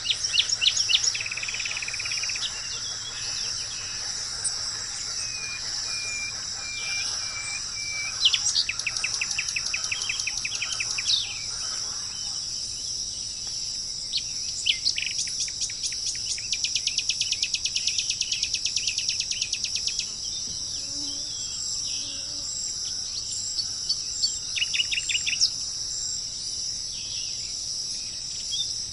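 Wild birds calling, with a few rapid trills of quick repeated notes (one about 8 s in, a longer one from about 16 to 20 s, and a short burst near 25 s), over a steady high-pitched insect chorus such as crickets.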